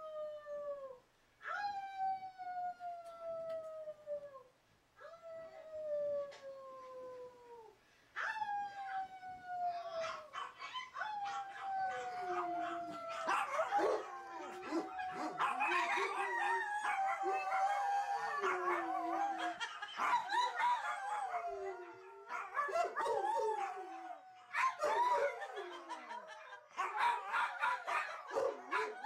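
Dogs howling. First come single howls, one every couple of seconds, each sliding down in pitch. About ten seconds in, several howls overlap in a wavering chorus that carries on to the end.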